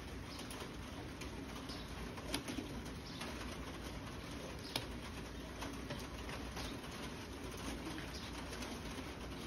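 A dove cooing in low, repeated phrases over a steady background hiss, with a couple of short sharp ticks.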